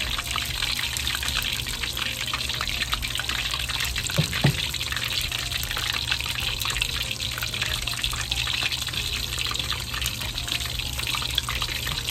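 Battered Dover sole fillets deep-frying in hot oil in a wok: steady sizzling and crackling, with one brief knock about four seconds in.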